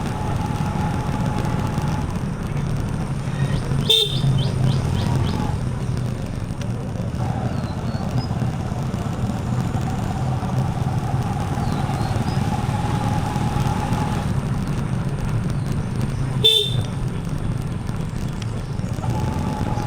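Single-cylinder TVS Apache RTR 4V motorcycle engine running at a steady riding speed with road and wind noise. A horn sounds twice, in short toots about four seconds in and again near the end, roughly twelve seconds apart.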